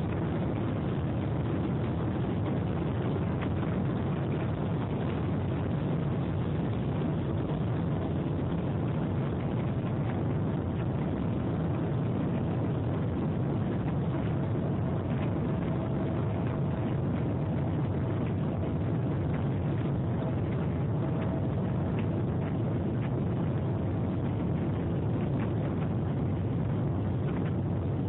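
Boeing 777-200ER engines at takeoff power, heard from inside the passenger cabin: a steady, even jet noise with a heavy low rumble, as the airliner rolls down the runway, lifts off and climbs. A faint steady hum runs through the middle of the stretch.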